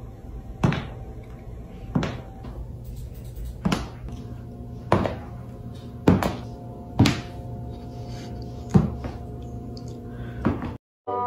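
A slipper knocking on a wooden floor as a cat carries it in its mouth, a sharp knock every second or so.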